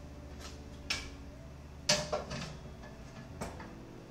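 Four light knocks and clicks of kitchenware being handled, the loudest about two seconds in, over a steady low hum.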